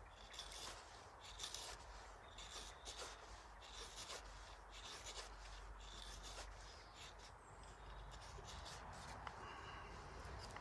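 Knife blade shaving feather curls off a sycamore stick: faint, irregular scraping strokes, roughly one a second.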